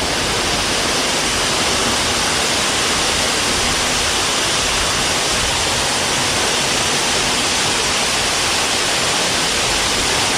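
Waterfall on a small creek: water pouring and splashing in a steady, loud rush.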